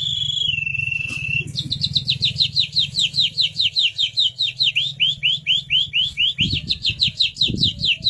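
A person imitating a Belgian canary's song. It opens with a held high note that steps down in pitch about half a second in, then becomes a fast trill of short downward-sweeping notes, about five a second.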